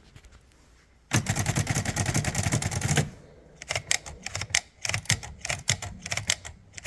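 Olympia SM7 manual typewriter: a dense rapid mechanical rattle for about two seconds, then a run of separate key strikes about four a second.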